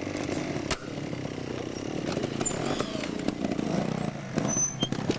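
Two-stroke trials motorcycle engine running under uneven throttle as the bike climbs a steep section, with one sharp knock less than a second in.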